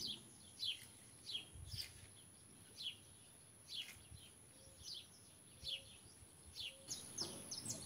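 A bird calling over and over with short, high chirps that each fall quickly in pitch, about a dozen, faint.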